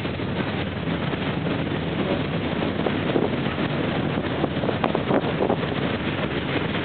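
Freight train of mostly empty gondola cars rolling past: steady noise of steel wheels on rail, with a few faint knocks in the middle, and wind on the microphone.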